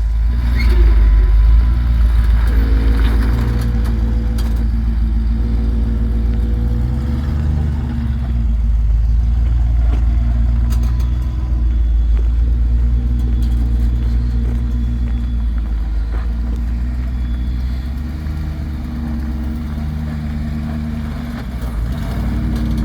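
Engine of an off-road 4x4 running under load at low speed, its pitch rising and falling as the throttle is worked.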